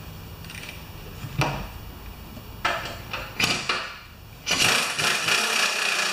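Pneumatic pistol-grip wrench running in short bursts, driving in the engine mounting bolts on a push mower's deck. There are a couple of brief runs near the middle and a longer run of about a second and a half near the end.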